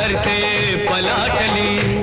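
Background music: a Bollywood-style song, with a voice singing a wavering melody over steady held notes.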